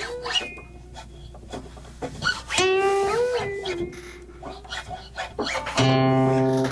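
Harmonica played in short, bent notes that slide up and back down in pitch with a voice-like quality, then a loud sustained chord near the end.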